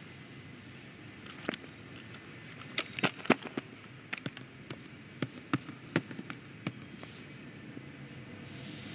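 A scattered run of sharp little clicks and knocks, about a dozen, from small plastic toys moving and bumping inside a sheet-metal air vent, over a low rumble of air. There are brief bursts of hiss about seven seconds in and again near the end.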